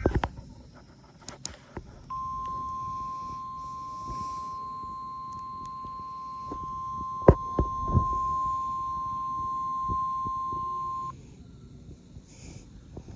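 NOAA Weather Radio warning alarm tone: a single steady 1050 Hz tone that starts about two seconds in, holds for about nine seconds and cuts off abruptly, sounding the weekly test. A few sharp knocks sound over it around the middle.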